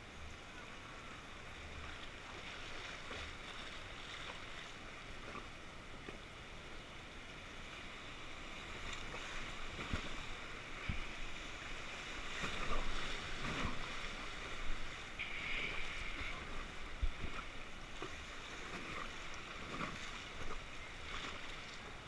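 River rapids rushing around an inflatable raft, growing louder through the middle as the raft runs the whitewater, with a few dull knocks.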